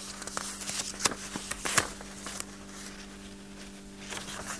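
Steady low hum with a few short clicks and rustles, mostly in the first half, from a pen and papers being handled on a desk.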